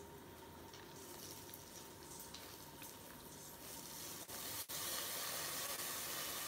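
Damp, freshly rinsed quinoa being scraped by hand from a mesh strainer into hot ghee in a steel pot: a soft rustle of grains with a faint sizzle that grows louder from about halfway in as the wet grains reach the hot fat.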